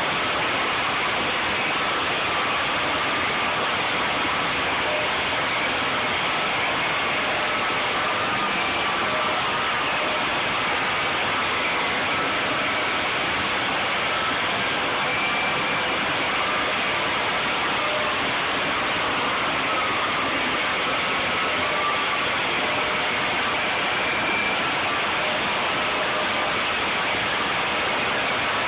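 Hardwood floor sander running steadily under dustless extraction, a constant motor-and-air noise with a faint wavering whine in it.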